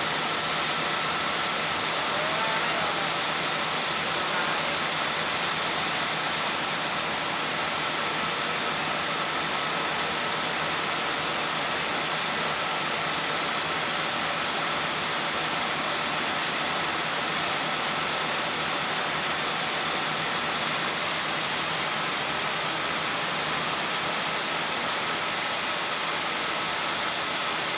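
Garant 4 cigarette-making machine running steadily at top speed: a dense, even mechanical rush with a faint steady whine in it.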